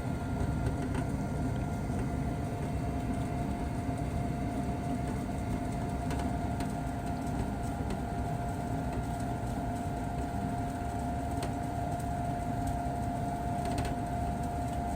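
Gas furnace draft inducer motor running with a steady hum and a steady whine on top, which sounds a bit odd to the technician, who suspects something is wrong in the motor.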